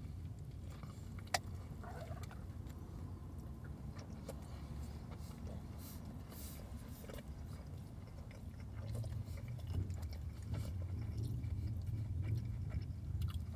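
A man biting into and chewing a spicy deluxe chicken sandwich, with small wet mouth clicks over a steady low hum. One sharp click about a second in, and the low hum grows stronger past the middle.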